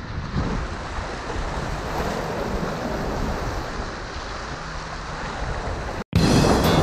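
Ocean surf washing against the jetty's rocks, with wind buffeting the microphone. About six seconds in, the sound cuts out for a moment and music begins.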